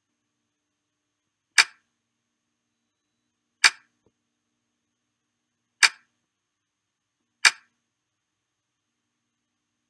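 Computer click sound played for each key pressed on an on-screen keyboard by dwell clicking: four sharp, short clicks about two seconds apart.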